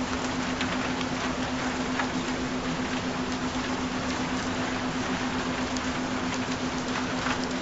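Steady rain with scattered single drops pattering through it, over a constant low pure tone of the kind used as a binaural-beat frequency track.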